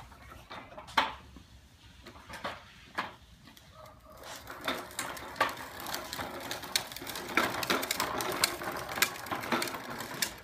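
Hard plastic wheels of a child's ride-on trike rolling and rattling over concrete paving: a few separate clicks at first, then a dense, uneven clatter from about halfway in.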